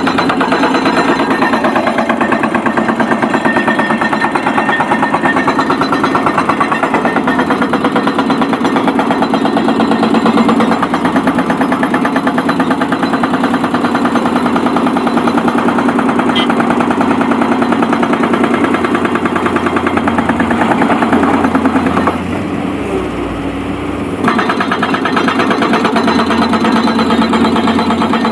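Excavator's diesel engine running steadily under work with a fast, even rattle. The sound dips for a couple of seconds about two-thirds of the way through, then comes back.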